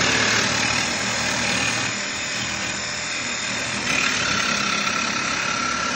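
Ronix power tool running steadily. About four seconds in its sound changes and a steady high whine comes in.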